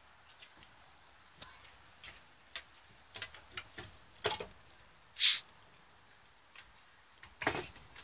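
Sink cover of a pop-up camper being handled, with light clicks and one sharp knock a little past halfway, over a steady high-pitched insect trill.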